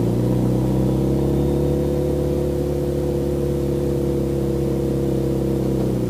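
Vehicle engine running steadily under way, an even droning note that holds the same pitch throughout.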